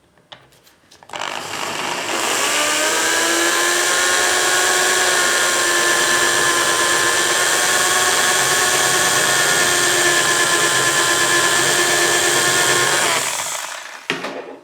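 Electric drill spinning up about a second in and running as a steady whine for about twelve seconds, then winding down and stopping near the end, drilling into a brass padlock's body to reach the core retaining pin.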